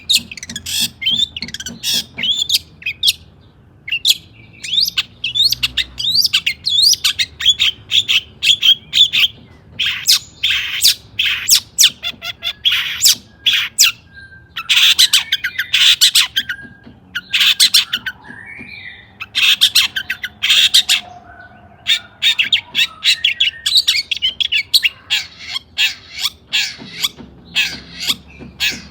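Long-tailed shrike (cendet) singing energetically: rapid runs of harsh, scratchy chattering notes and squawks with short pauses between bursts.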